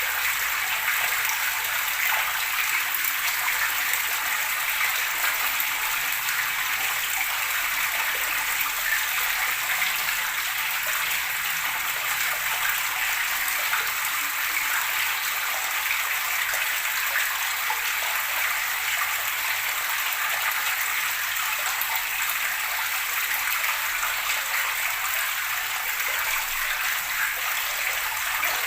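Running water flowing steadily, an even rushing hiss with no breaks or changes.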